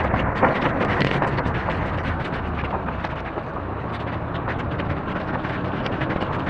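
Storm rain and gusting wind on the microphone: a steady rushing roar with many small sharp taps of raindrops.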